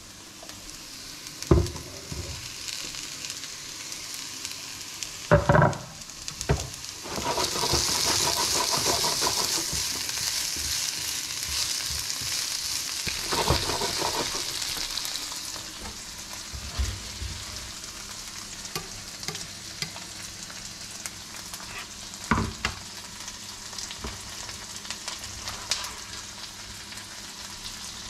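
Sliced bell peppers and onions sizzling in a hot frying pan while a spatula stirs them. The sizzle swells sharply about seven seconds in as the peppers go into the pan, then settles to a steady, softer sizzle. A few sharp knocks come early on and one more later.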